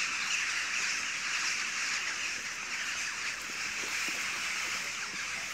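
Steady high-pitched hiss of an insect chorus in woodland, with a few faint footsteps on dry leaf litter.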